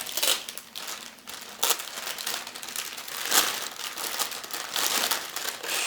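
Plastic wrapping on a new compact camera crinkling and crackling in irregular bursts as it is peeled off by hand.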